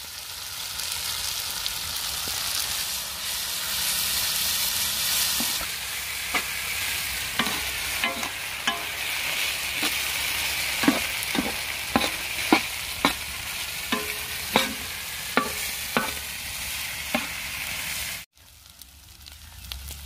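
Quail fry in onion-tomato masala sizzling in a large iron kadai. From about six seconds in, a steel ladle knocks and scrapes against the pan about once or twice a second as the masala is stirred and fried down. The sizzle cuts off suddenly near the end.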